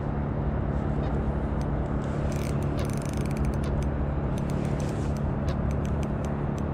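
Steady low rumble of road traffic, with scattered faint clicks from about two and a half seconds in.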